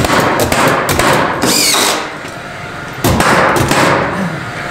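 Cordless drill driving screws into an OSB subfloor, its motor whining up and down with each screw, mixed with the sharp cracks of a cordless nail gun firing nails into the same panel.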